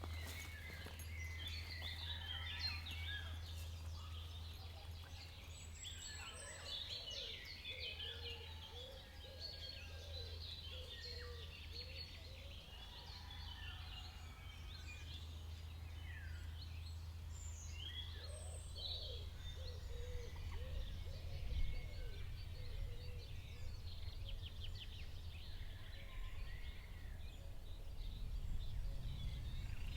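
Woodland birdsong: several songbirds singing and calling over one another, with some lower calls among them, over a steady low rumble. The low rumble grows louder near the end.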